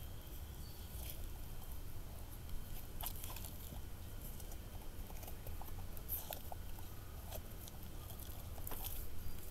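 Wet floppy slime being pulled and stretched out of its tub by hand, giving small sticky clicks now and then. The slime is overly wet and clings to the container.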